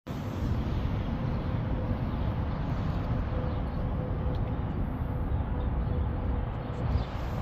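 Steady downtown city ambience: a continuous wash of distant traffic noise, with a faint steady hum running through the middle of it.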